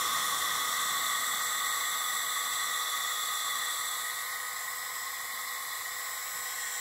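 Home-built CNC laser engraver standing idle between passes: a steady whirring hiss from its cooling fan, carrying several faint high steady tones, easing slightly about four seconds in.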